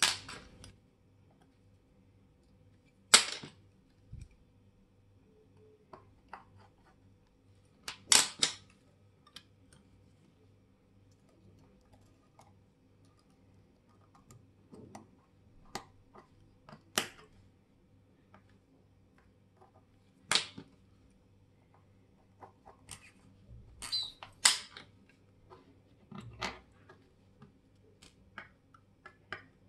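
Irregular sharp clicks and taps of watchmaker's tools and small metal watch parts handled on the bench, a handful of them loud with many lighter clicks between.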